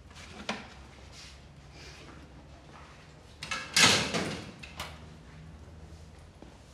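A metal locker door clanking open about four seconds in, with a rattling ring, and small sharp clicks about half a second in and just after the clank.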